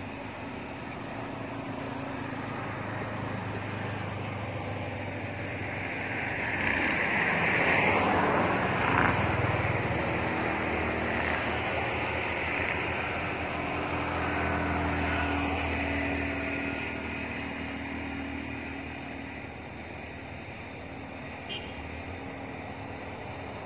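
Motor vehicle engine running, with a low steady hum. It swells louder as a vehicle passes about seven to nine seconds in, then fades back.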